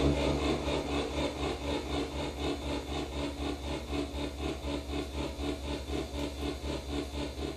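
MFOS Weird Sound Generator analog synthesizer putting out a raspy, rapidly pulsing tone, about four to five pulses a second, over a steady low hum, run through a delay pedal. It slowly gets quieter.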